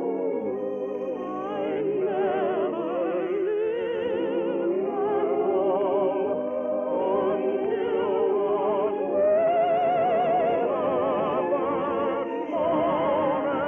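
Operatic-style singing with wide vibrato over orchestral accompaniment, from a 1950 radio broadcast recording that sounds muffled and narrow.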